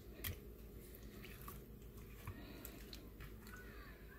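Raw hooligan (eulachon) being handled in a plastic bowl: faint wet squishes and a few soft clicks, the loudest a little after the start, over a low steady hum.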